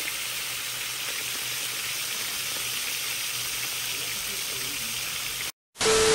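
Fish frying in hot oil in a pan, giving a steady sizzling hiss. About five and a half seconds in, the sizzle cuts off, and after a short silence a loud burst of TV-style static with a steady tone begins.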